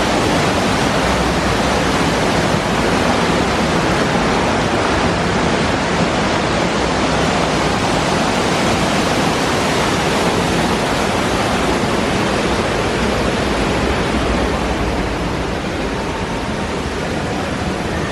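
Steady, loud rush of falling water from a waterfall, easing slightly near the end.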